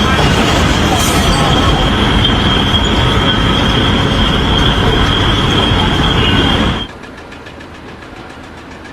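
Loud, steady mechanical rumble with a high, steady squeal over it, cutting off suddenly about seven seconds in, leaving a faint hiss.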